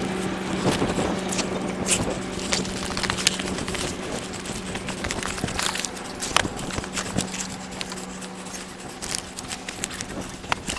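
Fast-forwarded handling noise from a body-worn camera: jacket fabric rubbing against the microphone with many scattered sharp clicks and knocks, over a steady low hum.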